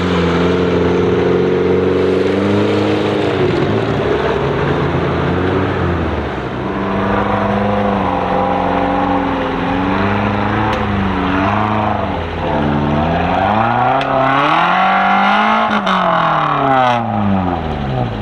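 Small off-road 4x4's engine revving hard under load while climbing, its pitch rising and falling repeatedly. It swells to a high peak near the end and then drops away.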